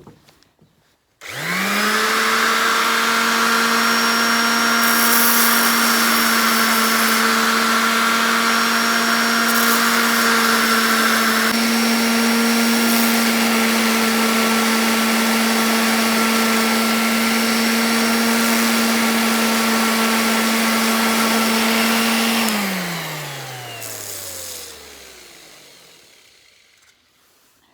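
Electric sander switched on about a second in and running at one steady high pitch while sanding pallet-wood pieces, then switched off near the end, its motor winding down with a falling pitch.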